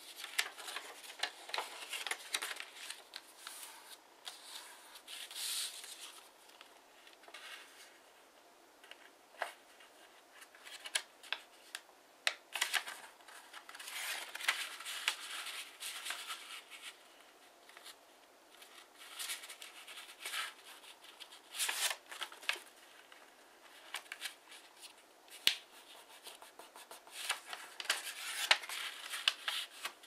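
A 15 cm square sheet of origami paper being folded by hand: irregular rustling and crinkling, with sharp short swipes as the folds are pressed and creased, and brief quieter pauses between.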